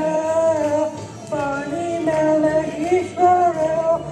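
Singing: a melody sung in long held notes that slide between pitches, with a short break about a second in.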